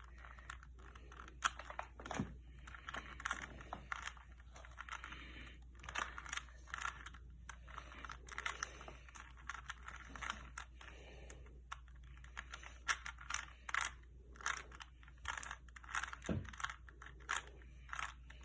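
3x3 Rubik's cube being turned by hand: quick, irregular plastic clicks and short scrapes as its layers rotate.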